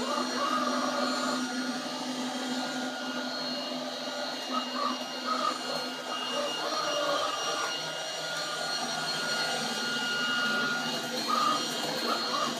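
XRobot 510D robot vacuum cleaner running: a steady motor hum and whine made of several fixed tones.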